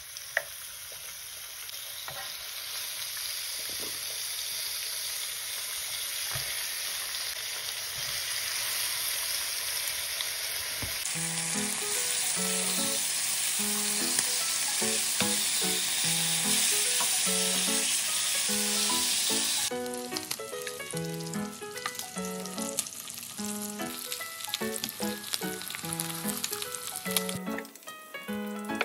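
Pork chops sizzling as they fry in an electric skillet, a steady hiss. A light background melody comes in about eleven seconds in, and the sizzling fades away a little after the middle while the music goes on.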